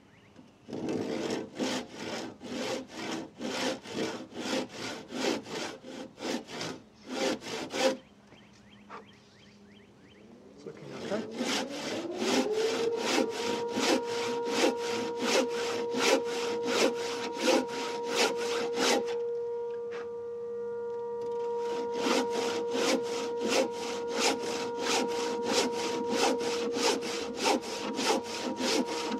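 Handsaw cutting through a wet timber rafter by hand, about two steady strokes a second, stopping for a few seconds about eight seconds in and then resuming. A steady background hum comes up, rising in pitch and then holding, about eleven seconds in.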